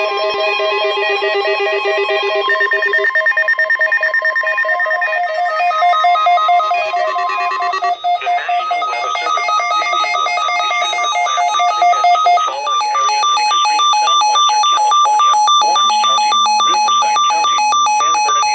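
Electronic synthesizer music with a ringtone-like melody of steady electronic tones stepping between pitches every second or so. About halfway through, a faster rhythmic pattern joins in. The music cuts off abruptly near the end.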